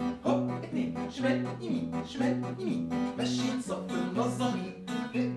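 Acoustic guitar strummed in a steady rhythm over a repeating bass pattern, with hand percussion keeping time.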